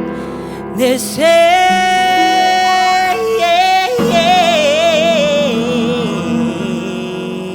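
A female singer holding a long high note, then singing a wavering melismatic run that falls in pitch, over sustained accompaniment chords.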